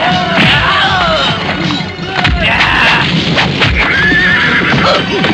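Martial-arts fight soundtrack: shrill, drawn-out cries sliding in pitch over background music, with a few sharp hits in the middle.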